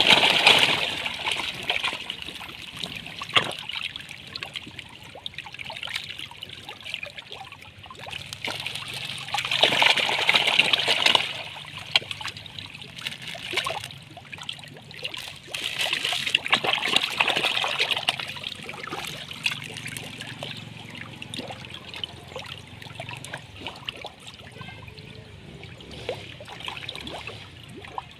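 A crowded mass of catfish thrashing and splashing in shallow water, a constant churning patter of small splashes and slaps. It swells into louder bursts of splashing three times: at the start, about ten seconds in, and again a few seconds later.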